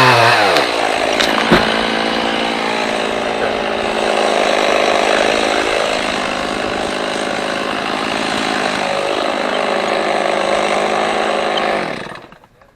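Chainsaw running at full throttle. Its pitch drops right at the start as it bogs under load, then holds steady with a couple of small dips before it cuts off abruptly near the end.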